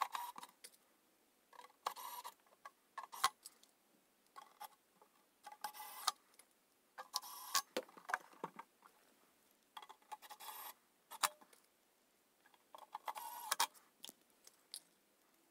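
Small electric screwdriver driving the screws of a metal equipment cover back in, in about eight short runs of under a second each, with light clicks from the screws and the steel case between runs.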